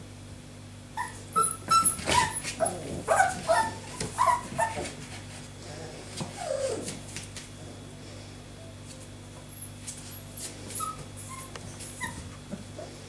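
Four-week-old puppies yipping and whimpering in short high calls, thickest in the first few seconds, with a falling whine about halfway through and a few scattered yips near the end, amid scuffling clicks of play.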